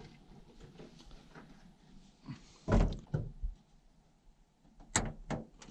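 A few separate metal thunks and clicks from a hand tool working a pickup truck's hood hinge bolt, the loudest thunk about three seconds in and sharper clicks near the end.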